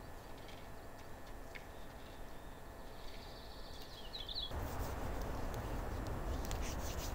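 Quiet outdoor ambience with a short bird chirp a little before halfway, then a campfire burning: a sudden steady rush of flames with crackling pops.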